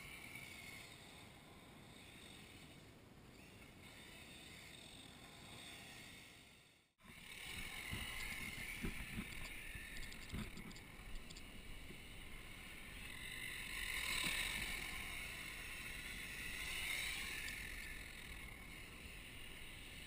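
Radio-controlled car driving at a distance, its motor whine rising and falling as it speeds up and slows, with wind rumbling on the microphone. The sound drops out briefly about seven seconds in.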